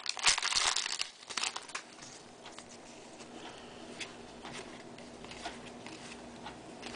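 Foil wrapper of a Topps baseball card pack crinkling and tearing open during the first two seconds, followed by softer rustling and light flicks as the cards are handled.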